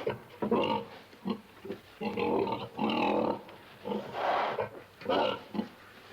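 Pig grunting repeatedly: about six or seven short, throaty grunts at irregular intervals, with brief pauses between them.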